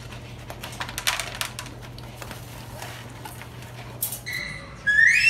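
German Shepherd puppy eating dry kibble from a plastic bowl: a run of small crunches and clicks. Near the end a loud, high-pitched, wavering squeal cuts in.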